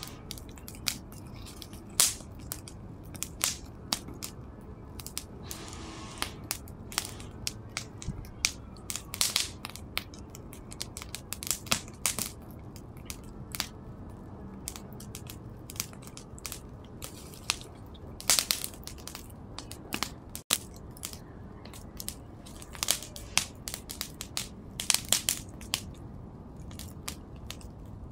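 Fire burning a painting and its frame, crackling with irregular sharp pops over a steady low rush of flame.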